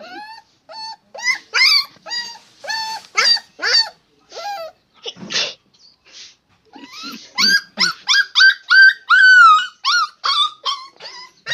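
Dog giving a run of short, high-pitched yelps and whines, two or three a second. After a brief pause the calls come back higher, longer and more drawn out, some falling in pitch.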